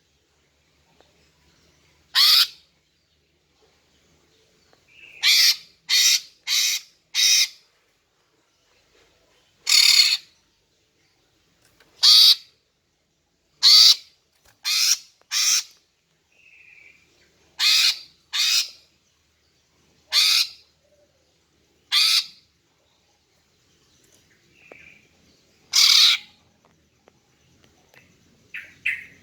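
Female green leafbird (cucak ijo) calling: short, harsh calls repeated every second or two, some in quick runs of two to four. This is the female call used to lure a male leafbird into answering.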